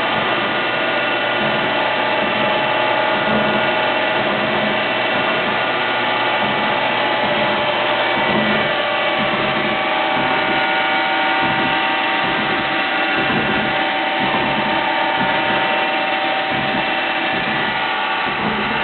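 Fadal CNC mill running a cut, its spindle and cutter giving a loud, steady whine made of several tones.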